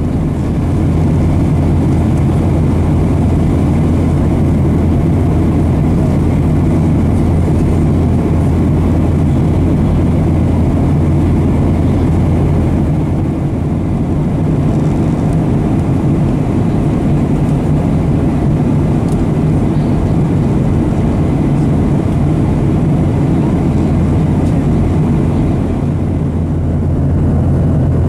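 Boeing 737-800 in flight heard from inside the passenger cabin: the steady drone of its CFM56-7B turbofan engines and the rush of air along the fuselage, with a deep low hum and no change in level.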